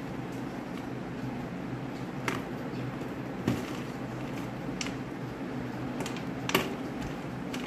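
A knife cutting a pink Lux soap bar into flakes over a stainless steel plate: scattered sharp clicks and taps as the blade cuts and chunks fall onto the plate, the loudest about two, three and a half and six and a half seconds in, over a steady low hum.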